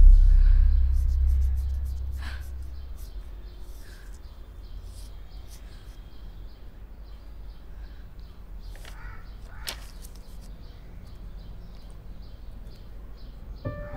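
A low rumbling drone fades away over the first few seconds, leaving quiet ambience with faint scattered ticks and a few soft chirps. Piano music comes in right at the end.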